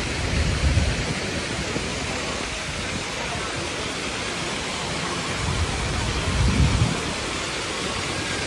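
A large public fountain's water jets splashing steadily into the basin, with two brief low rumbles, one just after the start and one about two-thirds of the way through.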